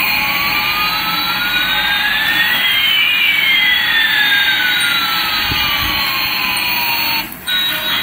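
Electronic jet-airliner sound effect: a rushing jet noise with one whine rising and another falling, crossing about three seconds in. It cuts off near the end.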